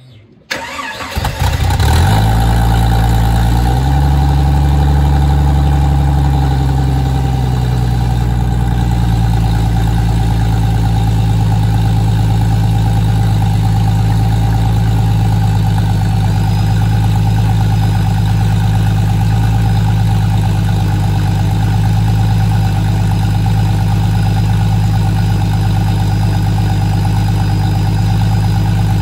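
Jeep Cherokee XJ engine cranking and catching about half a second in, its revs settling to a steady idle by about four seconds in. The engine is turning the transfer case output shaft against a drill bit held in its end, and a faint high whine joins about halfway through.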